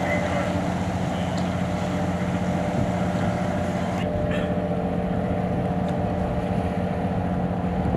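Military combat boat engines droning steadily. The drone carries several held tones over a hiss of water and wind.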